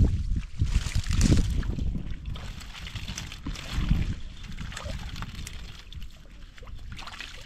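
Hands groping and sloshing through shallow muddy water, with irregular splashes that are loudest in the first two seconds and again about four seconds in.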